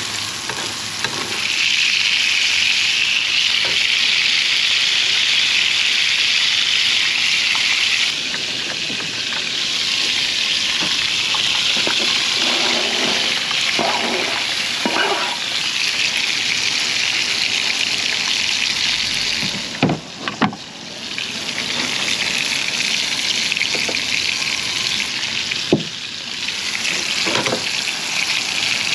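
Burgers frying in a pan, sizzling steadily and loudly, with a few clicks and knocks scattered through and a brief dip in the sizzle about two-thirds of the way in.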